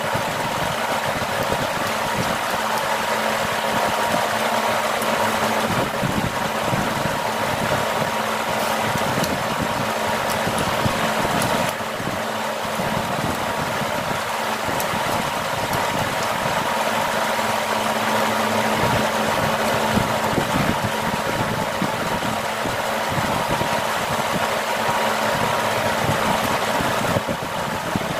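Steady mechanical hum of a running motor, with a few held tones over an even noise and a short dip in level about twelve seconds in.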